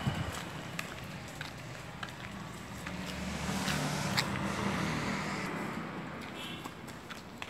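A motor vehicle passing by, its engine growing louder to a peak about halfway through and then fading. A child's running footsteps slap on the pavement at the start and again near the end.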